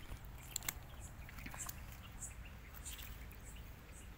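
Faint outdoor ambience: a low steady rumble with scattered brief high chirps and a few light clicks in the first second.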